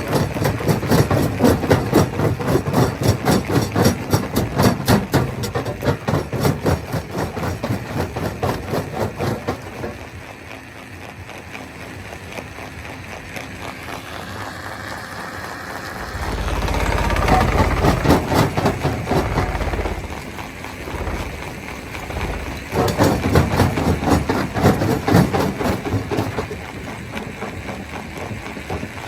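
Stone crushing machinery at work: rapid repeated knocks, several a second, fading after about ten seconds, then a heavy low rumble for a few seconds, and the rapid knocking returning near the end.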